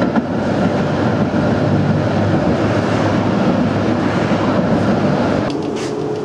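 Loud, steady rumbling noise of a moving vehicle, easing slightly about five and a half seconds in.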